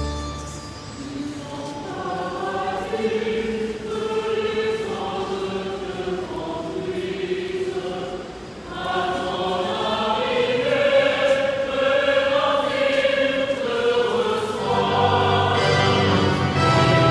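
Choir singing, with a low accompaniment coming back in about fifteen seconds in.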